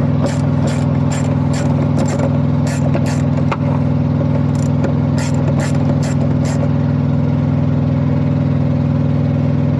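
Socket ratchet clicking about three times a second as it backs fog-light mounting nuts off, pausing briefly near the middle and stopping about two-thirds of the way in. A diesel engine idles steadily underneath and is the loudest sound throughout.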